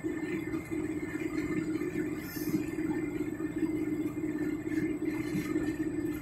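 Steady in-cabin drone of a Chevy Aveo cruising at highway speed: engine and tyre-on-road noise heard from inside the car.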